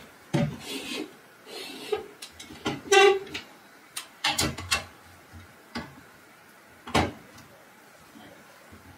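Wooden loft hatch panel being handled and set back into the ceiling opening: a string of sharp knocks, clunks and scrapes, with the loudest knock about seven seconds in.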